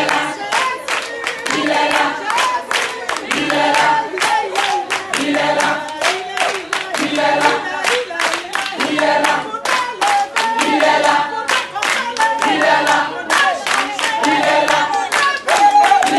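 A group of voices singing together, unaccompanied, with steady rhythmic hand-clapping.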